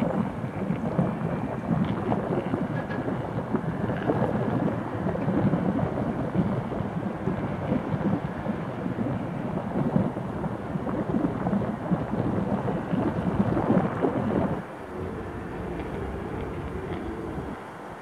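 Wind rushing over the microphone, an uneven rumbling noise that turns quieter about fourteen and a half seconds in.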